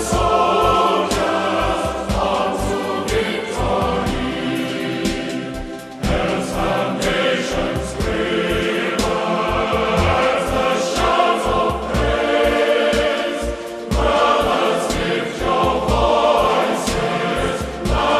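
A choir singing a hymn, the phrases breaking briefly about six and fourteen seconds in.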